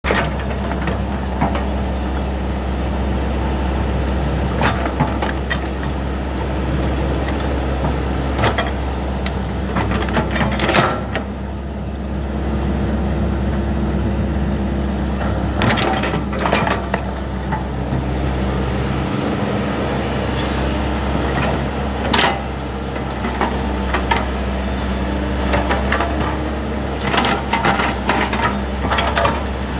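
Hitachi hydraulic excavator's diesel engine running steadily under working load, with sharp knocks and cracks every few seconds as the machine works.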